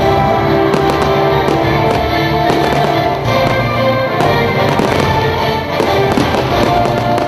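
Firework shells bursting and crackling in quick succession over loud music.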